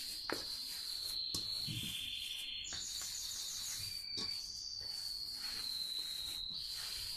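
A hand pressing and kneading soft dough in a stainless steel bowl, with a few faint knocks against the bowl, under a steady high-pitched trill.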